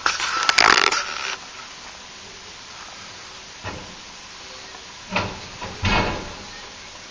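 Garbage truck emptying a bin, heard through a closed window. A loud rustle comes at the start. Then a steady low background runs on, broken by two short clatters about five and six seconds in as the bin is shaken down to get the last of the trash out.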